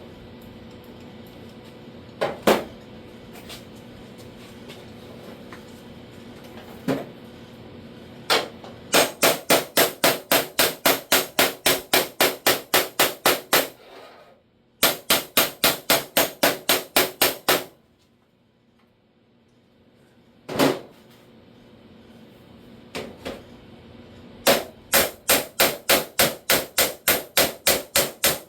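Hammer striking the sheet-steel door skin: a few single blows, then long runs of quick, even, ringing blows at about four a second, with short pauses between the runs.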